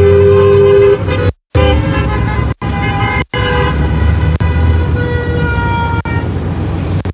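Car horns honking: one long, steady two-tone horn blast that stops about a second in, then more horns sounding over road noise, one sliding down in pitch near the end. The sound drops out briefly a few times.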